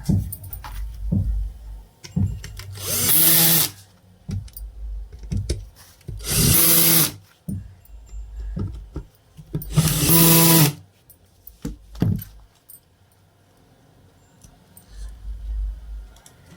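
A power tool's motor runs in three short bursts of about a second each, with knocks and clicks of handling in between.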